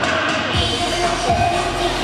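Pop song backing track with a steady beat, a young girl singing along into a handheld microphone.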